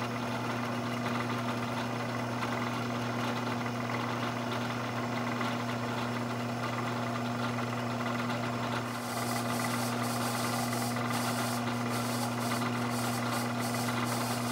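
Bridgeport milling machine spindle running steadily at about 1,000 RPM with a steady motor hum. After about nine seconds a faint, irregular scratchy ticking joins the hum.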